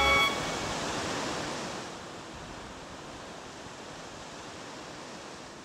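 Surf washing onto a sandy beach: an even wash of waves that drops lower about two seconds in and begins to fade near the end. The last held chord of music cuts off just at the start.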